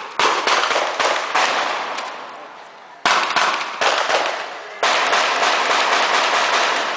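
Heavy gunfire: shots fired in rapid succession in three volleys, the last and densest starting about five seconds in.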